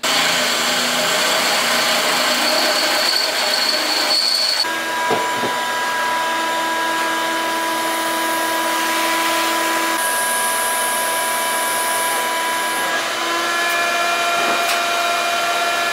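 Shop vacuum running steadily, sucking up drilling debris, with whistling tones in its airflow that change pitch a few times.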